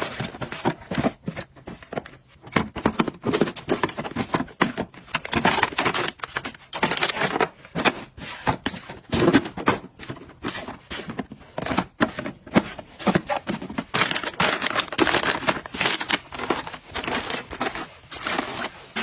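Plastic packaging crinkling and tearing as items are unpacked and handled, with many scattered clicks and taps.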